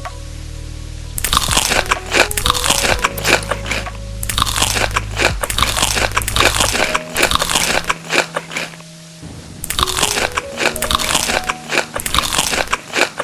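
Crunchy food being bitten and chewed close to the microphone in three long bouts of loud, dense crunching, with background music underneath.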